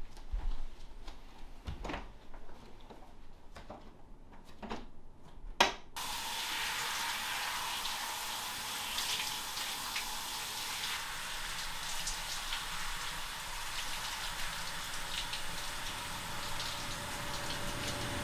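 A few small clicks and knocks, then about six seconds in water starts running and runs steadily.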